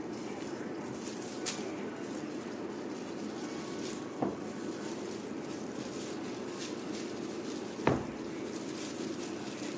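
A few soft thumps over a steady low hum as Ragdoll kittens leap and land on a rug, the loudest near the end.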